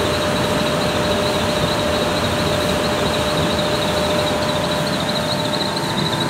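A 20 HP floor-standing air conditioner running, its blower pushing a steady rush of air with a steady hum and a high whine over it.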